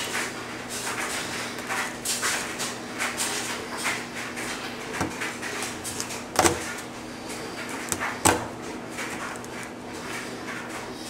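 Knife cutting and scraping at a turkey tail as the tailbone is cut out, with feathers rustling and two sharp knocks about six and eight seconds in.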